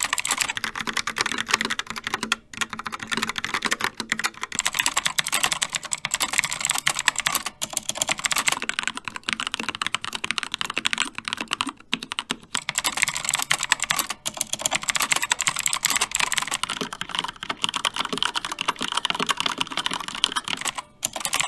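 Continuous fast typing on several mechanical keyboards in turn: a Logitech POP Keys with TTC Brown tactile switches, a Keychron K2 with Gateron Red linear switches, and a Rapture Alpha with Cherry Red linear switches. The typing is a dense stream of key clicks and clacks with a few brief pauses.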